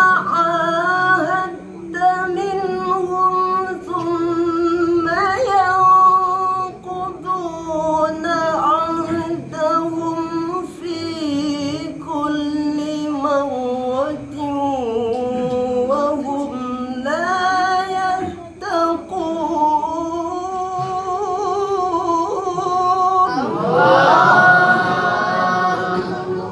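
High male voice chanting Qur'anic recitation (tilawah) in maqam Nahawand: long held notes with wavering melismatic ornaments, separated by short pauses for breath. About 23 seconds in, it swells louder.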